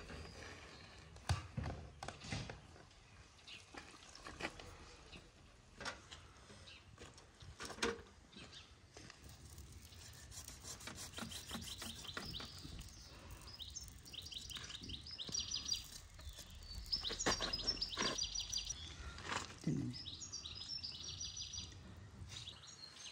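A songbird singing runs of rapid, high chirping trills, starting about ten seconds in and repeating until near the end, over a few scattered knocks.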